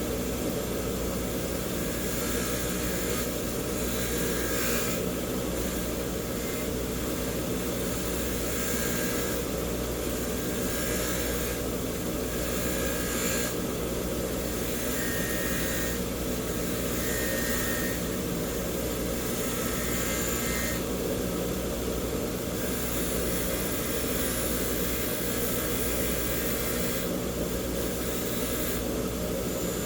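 Bench grinder motor running steadily with a wire wheel turning, an air chuck held against the wheel to be cleaned. A brushing hiss swells and fades every few seconds as the part is pressed to the wheel and eased off.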